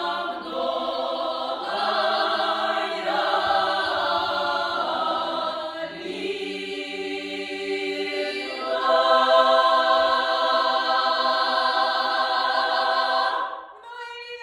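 A choir singing unaccompanied in slow, long-held chords; the last chord is held for several seconds and stops near the end.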